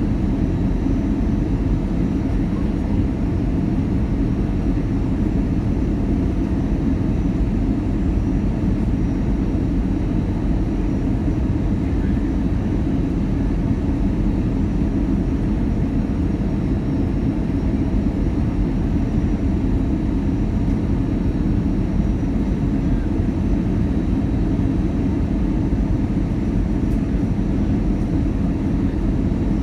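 Steady cabin noise of an Airbus A319 airliner with its engines running: an even low rumble with a faint high whine above it.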